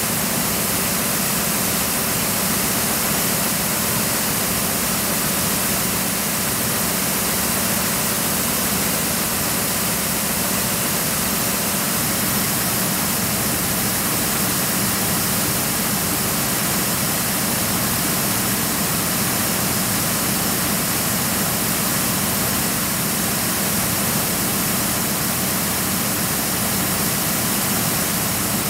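Steady, even rushing noise with a low hum beneath it, unchanging throughout, like air or machinery running.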